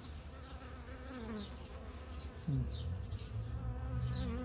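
Worker honeybees buzzing in a crowd: a steady hum of many wings with wavering pitch, and a louder buzz sliding down in pitch about halfway through.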